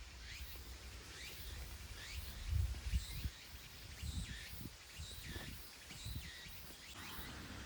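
Wild birds calling over and over in short, quick chirps that sweep in pitch. Under them come a few low thuds, the loudest about two and a half to three seconds in.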